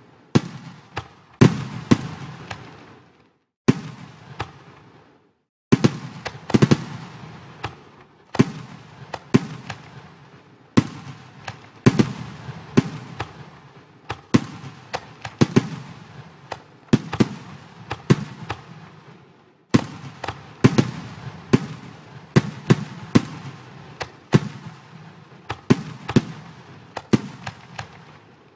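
Fireworks sound effects from a fireworks simulation program: shells bursting one after another, each sharp bang trailing off in a fading crackle, about one or two a second, with a brief lull around five seconds in.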